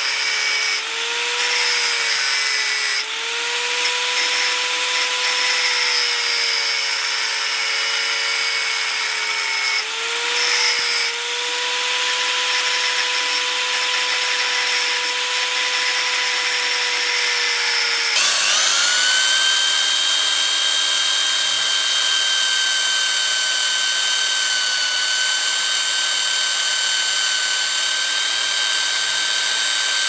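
Small electric power tool working wood: its motor whine sags and recovers under load for the first eighteen seconds or so. It then rises sharply to a higher, steady whine as the tool runs free.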